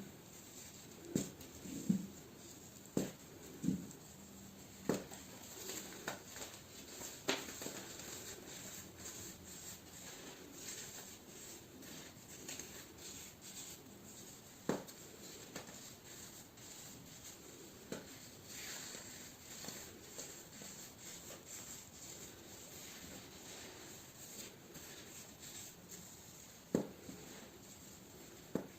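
Baking soda being crushed and crumbled, with sharp crisp crunches (several in the first eight seconds, then a few spaced-out ones later) and soft gritty rubbing between them.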